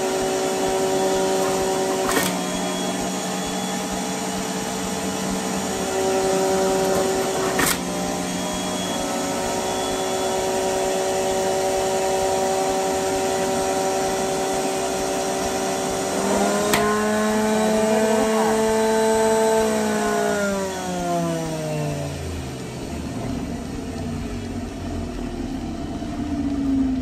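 NutriBullet Juicer's electric motor running at a steady speed while juicing, with a few sharp clicks. About 17 seconds in the pitch steps up with a click, and about 20 seconds in the motor is switched off and winds down, its pitch falling over several seconds.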